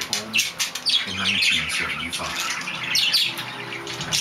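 Budgerigar chattering in a quick, steady run of short chirps, many of them falling in pitch, several a second, while it mounts and rubs against a plush toy in mating behaviour.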